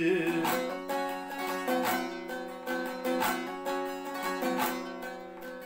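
Bağlama (saz) played solo without voice: plucked and strummed notes of a folk melody over ringing drone strings, with a stronger stroke every second or so, growing quieter near the end.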